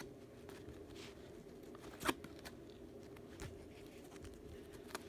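Trading cards being handled: faint slides and taps of card stock, with one sharper click about two seconds in, over a steady low hum.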